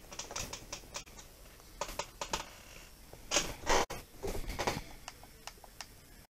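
Irregular light clicks and taps with a few louder rustling bursts in the middle, cutting off abruptly near the end.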